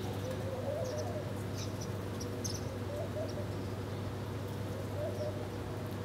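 Small birds chirping in short, high, scattered notes, with a few low wavering calls in between, over a steady low hum.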